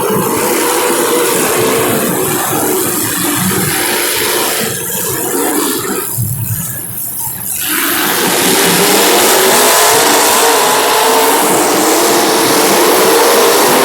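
Demolition derby cars' engines running and revving in a loud, continuous din, growing louder about eight seconds in.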